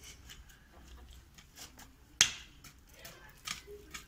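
Hand mattock chopping shallowly into loose soil to work fertiliser in: scattered light ticks and scuffs of blade, clods and small stones, with one sharp strike about two seconds in.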